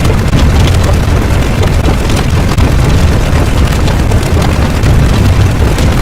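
Loud, continuous low rumble with a dense noisy texture, steady throughout.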